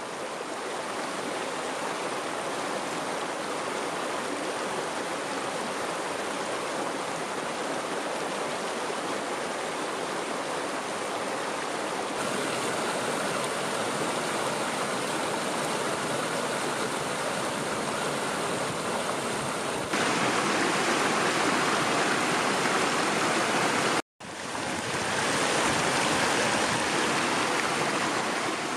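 Rushing stream water, a steady noise that jumps louder at cuts about twelve and twenty seconds in and drops out for a moment about twenty-four seconds in.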